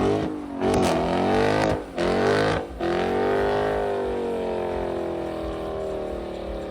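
Car engine revving in several quick rises and falls, then holding one long note that slowly drops in pitch as it eases off.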